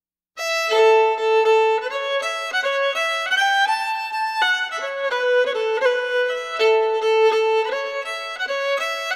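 Background music: a solo fiddle playing a tune of quick, changing notes, starting about half a second in.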